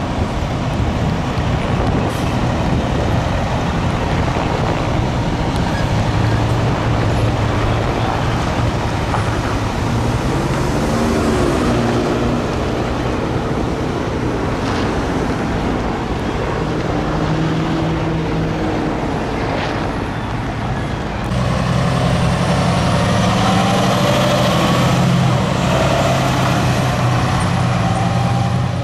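Fire engines driving past, their diesel engines running under a haze of road and traffic noise. About two-thirds of the way through the sound gets louder and fuller as a fire engine rolls close by.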